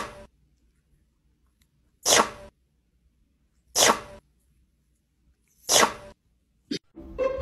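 A cat sneezing three times: short, sharp bursts about two seconds apart.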